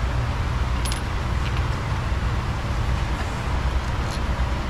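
Steady low background rumble, with a few light clicks of parts being handled around the engine; the click about a second in is the sharpest.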